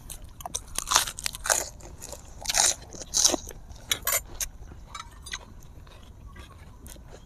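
Crisp, close-miked crunching as fresh lettuce leaf is bitten and chewed: a run of crackly bites in the first four seconds or so, then sparser chewing.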